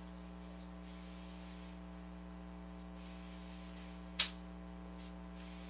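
Steady electrical mains hum, with a single sharp click about four seconds in.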